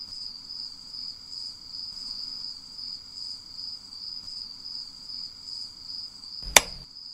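Crickets chirping in a steady, pulsing high trill, with a single sharp click near the end.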